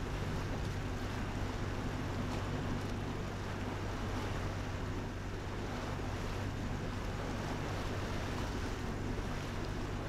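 Small tug's inboard engine running steadily under way, a constant low hum, with water rushing along the hull and some wind on the microphone.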